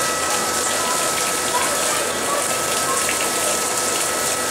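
Steady rush of water pouring and splashing into a pool, with a faint steady high tone underneath.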